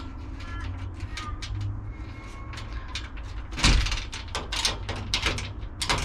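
Metal clicks and scrapes as a screwdriver works the remaining half of a snapped euro cylinder out of a swollen screen security door lock body, with one louder knock a little past halfway. The lock body is swollen and damaged, so the cylinder has to be wiggled free rather than sliding straight out.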